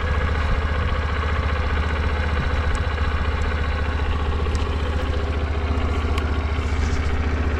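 Suzuki GS50's small air-cooled four-stroke single-cylinder engine idling steadily. It runs quietly with no abnormal noise, the sign of an engine in sound running order.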